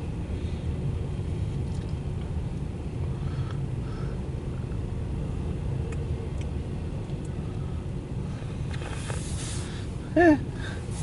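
CSX intermodal train's well cars rolling past with a steady low rumble, heard from inside a car.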